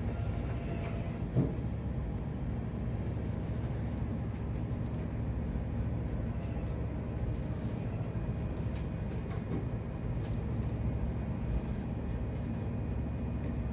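Ship's engine running with a steady low drone, heard from inside the wheelhouse, with one short knock about a second and a half in.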